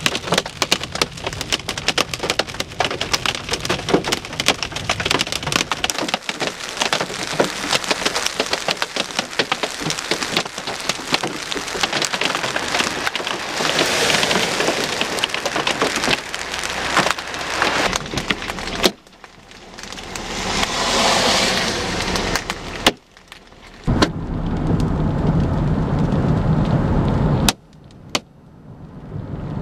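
Hail and rain pelting a vehicle's body and windshield: a dense, continuous clatter of hard impacts over a hiss of rain. The sound cuts off abruptly a few times, and the later stretches carry a heavier, lower rumble.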